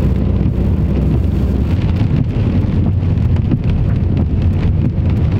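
Steady low rumble of a car's engine and tyres, heard from inside the cabin while driving on a rain-wet road.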